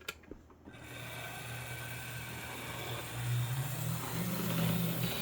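HO scale brass U50 model locomotive, dual-motor, running on track with a steady electric motor hum and gear whine. A click and a brief dip come right at the start, and about three seconds in the hum gets louder and rises in pitch as the locomotive speeds up.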